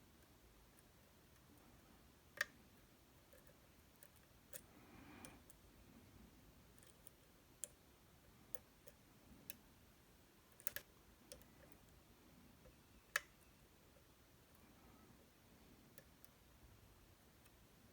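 Sparse small metallic clicks from lock-picking tools working the pins of a 14-pin dimple cam lock cylinder. They come irregularly, with the sharpest about two and a half seconds in and again near thirteen seconds, over an otherwise near-silent background.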